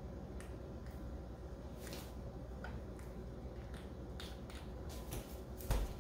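Faint scattered clicks and light taps from a small object being handled on a countertop, over a low steady room hum, with a heavier bump near the end.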